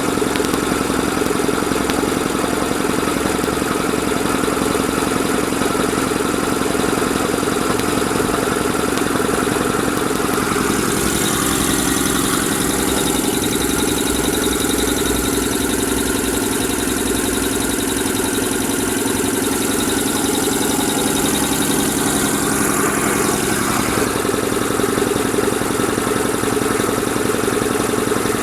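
A 20 HP Meiji air compressor running steadily under load, pumping up its tank pressure. A hiss joins the drone about a third of the way in and drops away again about two thirds of the way in.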